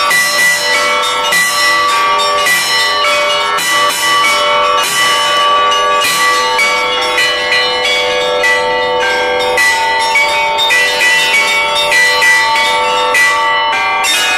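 Russian Orthodox church bells rung by their clappers. Several bells of different pitches are struck in a quick, repeating pattern, and their ringing overlaps.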